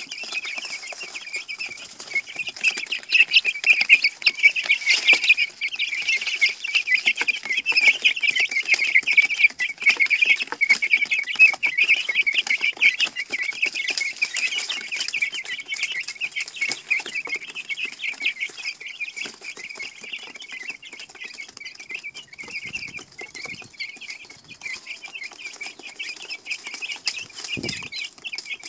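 A brood of baby chicks peeping constantly, many at once in a tight crowd of short high chirps. Busiest in the first half, then thinning out somewhat.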